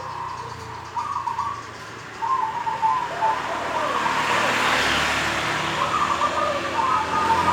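Zebra dove (perkutut) cooing in several phrases of soft, bubbling notes, with traffic noise swelling in the background around the middle.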